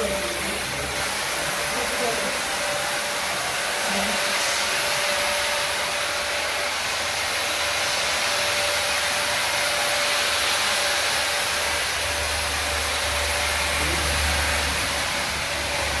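Electric disinfectant fogger running steadily: a blower's loud even rush of air and spray with a constant high whine.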